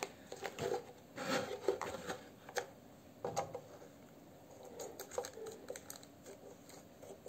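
Scissors snipping through thin plastic tint film, trimming the excess from around the edge of a car tail-light lens, with the film crinkling. A series of irregular short cuts, most of them in the first half.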